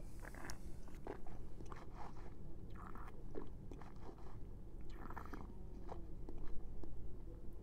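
A mouthful of red wine being swished and chewed around the mouth during tasting, with short irregular wet slurping noises as air is drawn through it, the longest near the start and about five seconds in.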